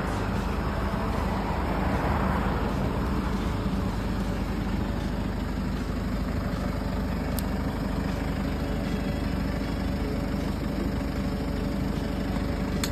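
A flatbed truck's engine idling steadily throughout.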